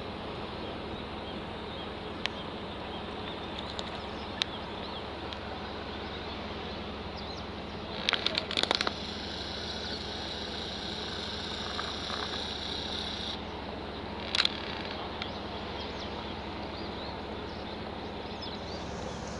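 Outdoor harbour ambience: a steady noise with a faint low hum. About eight seconds in comes a short rattle of sharp high clicks, followed by a high steady buzz that lasts about four seconds and cuts off, and a single sharp click a little later.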